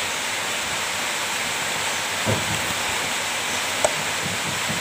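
A steady, even hiss, with a soft low knock about halfway through and a short tick near the end.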